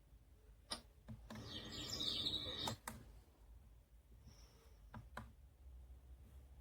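Clicks of a small device's buttons, with a short stretch of birdsong from a sound machine's nature-sound track playing between two presses about a second in.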